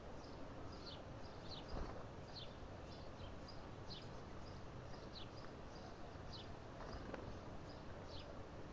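Wild birds calling with short, high, downward-sliding notes repeated about once a second, over a steady outdoor hiss. A soft knock comes about two seconds in and another about seven seconds in.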